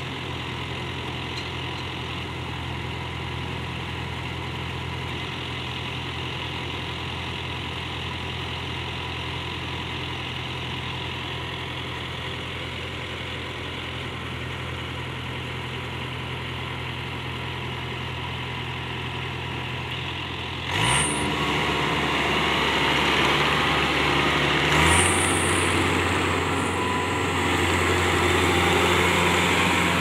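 Kubota KAR75 rice combine harvester's diesel engine running steadily. About two-thirds of the way through, the sound turns abruptly louder and busier, with the engine note shifting again a few seconds later.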